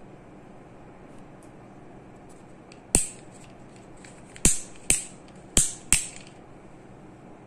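Sharp plastic clicks from a small toy crane truck's boom being moved by hand: one about three seconds in, then four more in quick succession.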